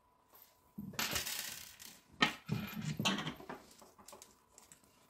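Small metal screws poured out and rattling into a small container, followed by a few sharp clinks and ticks as they settle and are handled.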